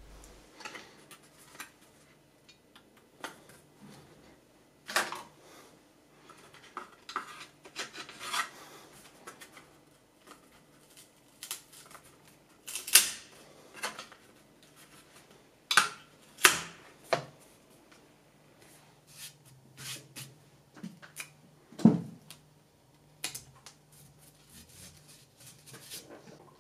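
Scattered clicks, taps, knocks and rubbing from hands and small tools handling the workpiece and parts on a 3D printer's aluminium frame and bed. A few sharper knocks stand out, about 13, 16 and 22 seconds in.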